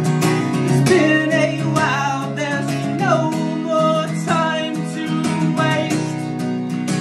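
Acoustic guitar strummed in a steady rhythm, with a voice singing a melody over it from about a second in until about a second before the end.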